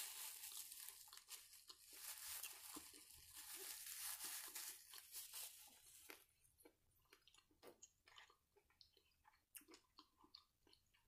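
Close-miked eating: biting into and chewing a chicken sandwich held in a rustling paper wrapper, a dense crackle for the first six seconds or so. After that come quieter chewing and scattered small clicks of a plastic fork in a container of green beans.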